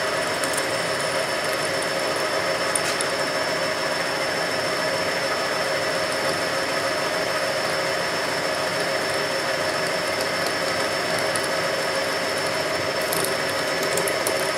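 Capstan lathe running with its drill bit feeding down into a metal workpiece: a steady machine hum with a thin, high, steady whine above it.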